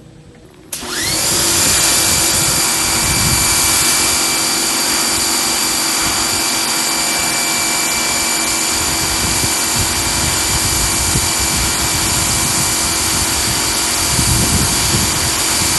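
Electric pressure washer motor starting up suddenly about a second in, briefly rising in pitch, then running steadily with a high whine over the hiss of the water jet from the 15-degree nozzle.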